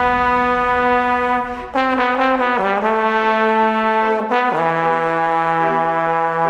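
Background music of long held, brass-like notes that step lower in pitch about two seconds in and again past the middle.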